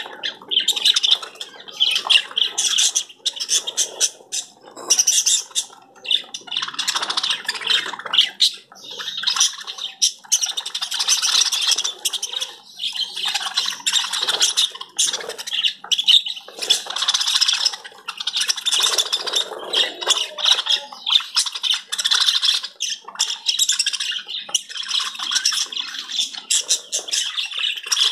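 A flock of small birds chattering and squawking continuously, many short overlapping calls with no pause.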